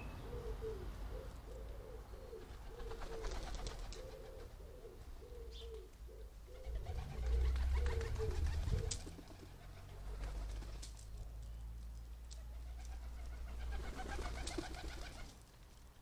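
A pigeon cooing, a repeated series of low coo notes that stops about seven seconds in. Intermittent bursts of rustling and a steady low rumble run underneath, loudest around the middle.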